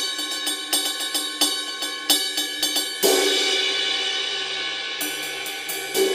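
20-inch Zildjian K Custom Dark Ride cymbal, its four drilled rivet holes empty, played with a stick in a steady ride pattern of about three strokes a second. About three seconds in a hard hit opens into a long, dark wash, more strokes follow near the end, and a last hit dies away quickly.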